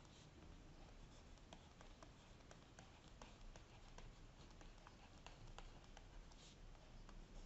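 Near silence with faint, irregular clicks and taps of a stylus writing on a tablet screen.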